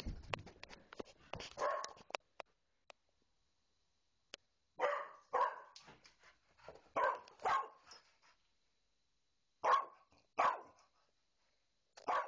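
A dog barking in short, sharp pairs: three pairs a couple of seconds apart, then a single bark near the end. Soft clicks and rustling come in the first two seconds, before the barking.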